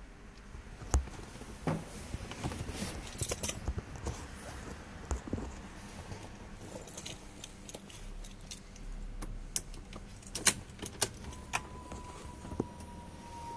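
Car keys jangling and clicking against the console as the key of a Ferrari 612 Scaglietti is handled at the ignition, with the engine not yet running. Near the end a steady, slightly falling electronic tone begins.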